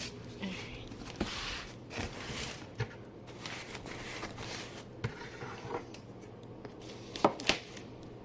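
Rustling and crinkling of a taped plant shipping package being handled and unwrapped, with scattered small taps and clicks and two sharper knocks near the end.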